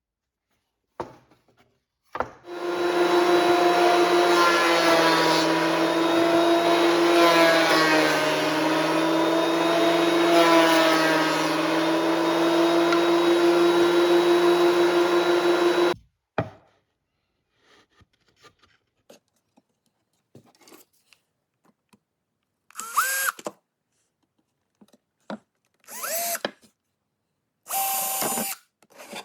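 Power drill running steadily for about thirteen seconds, its pitch sagging briefly midway under load, then stopping. Near the end come several short trigger bursts, some spinning up in pitch.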